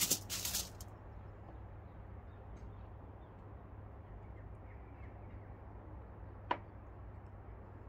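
Aluminium foil crinkling briefly as a fish fillet is handled on it, then a steady low background hum with one short sharp sound about six and a half seconds in.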